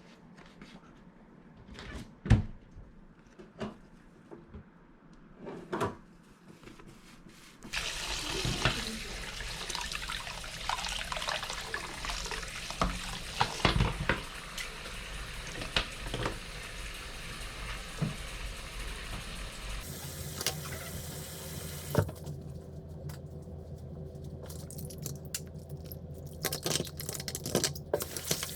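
A few knocks and handling sounds, then from about 8 seconds in water running steadily, as from a tap into a sink, with small clicks and clatter of things being rinsed or handled.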